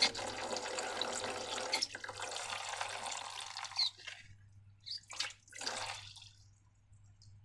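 Liquid pouring steadily into a container, stopping about four seconds in, followed by two short wet splashes.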